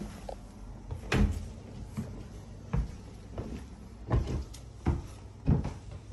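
Footsteps climbing carpeted stairs: a steady series of dull thuds, about one every 0.7 seconds.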